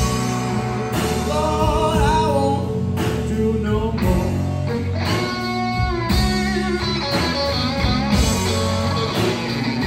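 Live blues band playing: electric guitar, bass guitar and drum kit, with a male voice singing.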